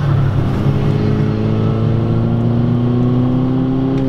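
Turbocharged 2.0-litre four-cylinder engine of an Audi A3 accelerating, heard from inside the cabin, its revs climbing steadily in one gear over a few seconds.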